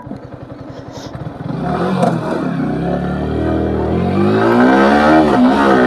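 Yamaha R15 motorcycle's single-cylinder engine ticking over, then about a second and a half in pulling away and accelerating, its pitch climbing, dipping at gear changes and climbing again as it gets louder.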